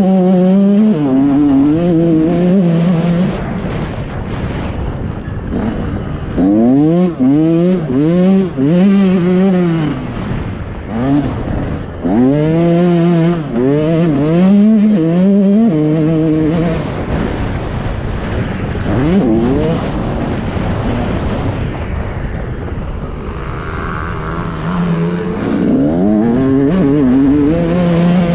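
Motocross dirt bike's single-cylinder engine under hard riding, its pitch climbing and dropping back again and again through the gears and throttle changes. The engine eases off for several seconds past the middle, then revs up again near the end.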